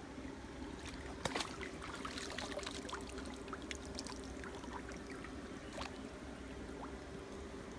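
Stream water splashing and trickling around a man wading as a speared fish is drawn in on a line, with small splashes and drips. A single sharp snap about a second in is the loudest sound.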